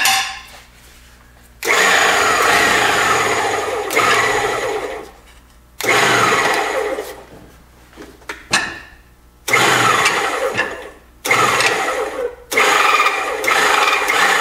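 Powered pump of a hydraulic shop press running in about five short bursts, its pitch falling during each run, as the press ram bends a steel light-bar mounting bracket in a bending die.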